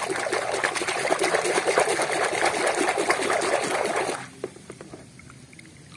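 A hand swishing a toy through a bucket of muddy, foamy water: a fast, dense run of small splashes and bubbling that stops about four seconds in.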